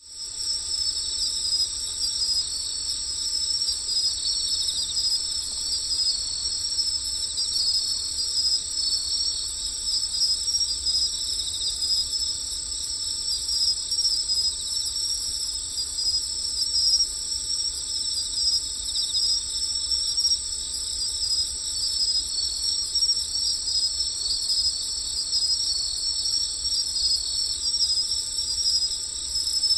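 A chorus of night insects, crickets by the sound of it, trilling continuously in several overlapping high-pitched layers.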